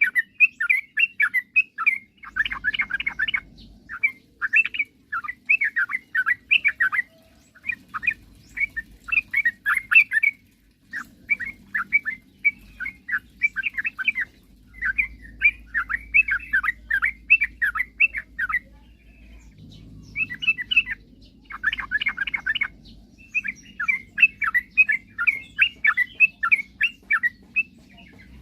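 Yellow-vented bulbul (trucukan) singing in full voice: rapid chattering phrases of short notes, each a second or two long, repeated with short breaks.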